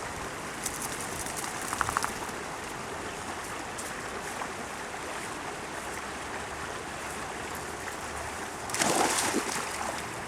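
River water flowing in a steady rushing stream. A few faint clicks come about two seconds in, and a louder burst of about a second comes near the end.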